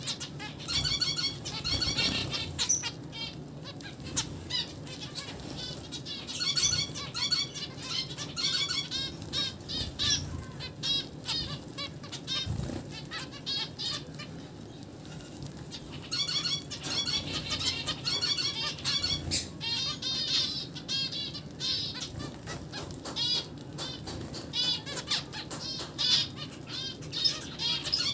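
A flock of zebra finches calling in clusters of short, quick chirps that come and go, over many small clicks and wing flutters as the birds jostle and peck at seeds.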